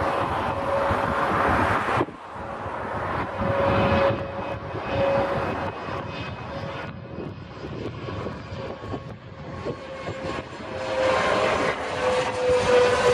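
Airliner jet engines passing overhead on landing approach: a steady rushing noise with a held whine that drifts slightly lower in pitch near the end.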